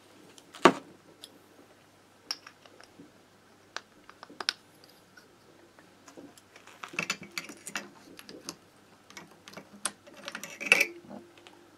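Scattered clicks and metallic clinks of small moped-engine parts and tools being handled on a wooden workbench. One sharp knock comes about half a second in, and a denser run of clinks comes near the end as hands work at the crankcase's cylinder studs.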